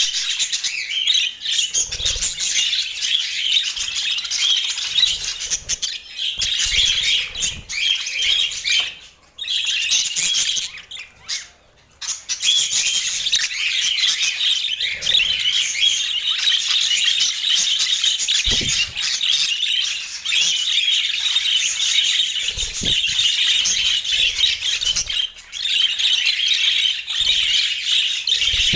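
A flock of budgerigars chattering and warbling in a dense, continuous stream of chirps, with two brief lulls partway through and a few soft thumps.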